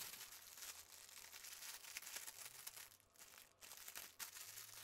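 Faint crinkling and rustling of a clear plastic bag as it is handled and opened, with small zip bags of diamond-painting drills shifting inside.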